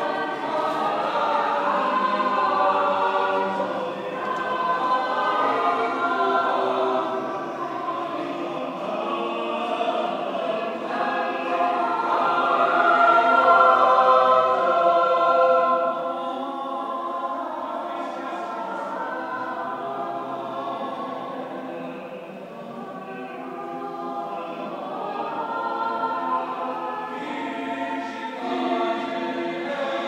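Anglican cathedral choir singing choral evensong: many voices in sustained, flowing lines, swelling to their loudest about halfway through and then easing off.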